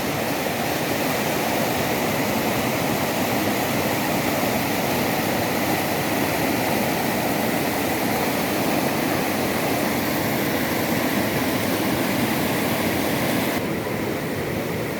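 Waterfall rushing: a steady wash of falling water, even throughout, its hiss turning a little duller near the end.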